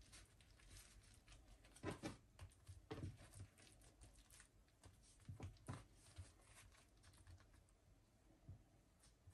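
Faint rustling and soft tapping of a thin, papery spring roll wrapper being folded and rolled by hand on a wooden board, with a few louder taps about two, three and five and a half seconds in.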